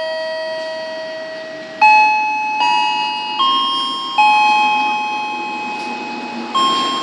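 Station loudspeaker chime playing a slow melody of bell-like notes, each struck and fading away, at changing pitches about one a second, with a pause of two seconds in the middle. It is the chime that comes before a train announcement.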